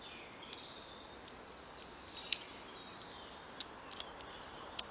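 Wild birds singing faintly in woodland, thin whistled notes with small rises and falls in pitch. A few short sharp clicks or ticks come through it, the loudest a little past the middle.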